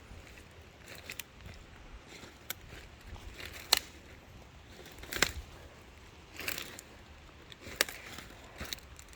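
Footsteps crunching and crackling on leaf litter and twigs of the forest floor, irregular steps about every second or so.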